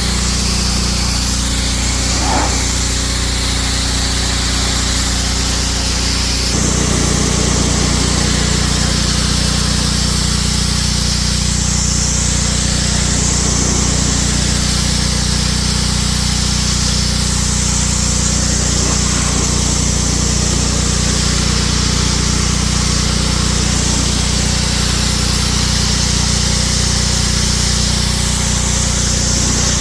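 A power tool's motor running steadily and continuously, with a change in its sound about six and a half seconds in.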